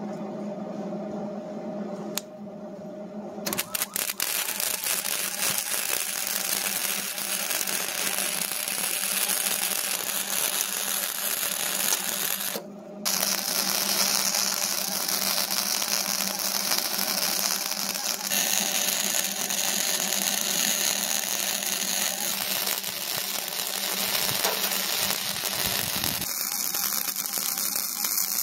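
Arc welding on the steel loader bucket: a steady, dense crackling arc that starts a few seconds in, breaks off briefly near the middle and then runs on.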